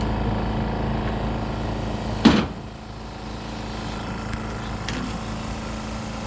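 A single sharp knock about two seconds in, with a short ring, over a steady mechanical hum, as parts are worked out of a differential.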